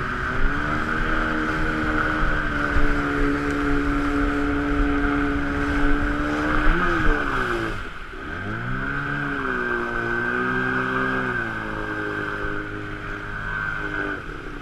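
Water-jet outboard motor of a river boat running at speed. About seven seconds in it revs briefly, then the throttle drops sharply and the engine falls almost to idle. It picks back up to a steady run and eases off again near the end as the boat slows toward the bank.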